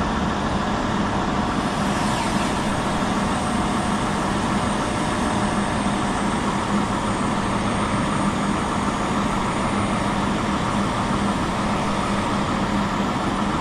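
A heavy diesel truck engine running steadily with a constant low hum, most likely the concrete boom pump truck's engine left running while the pump waits for concrete.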